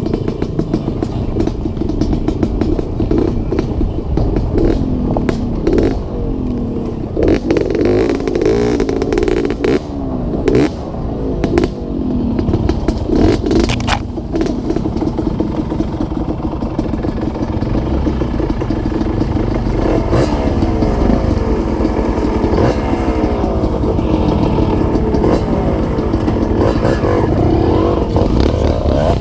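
Dirt bike engine ridden along a bumpy dirt trail, its pitch rising and falling again and again as the throttle opens and closes, with rattles and knocks from the rough ground.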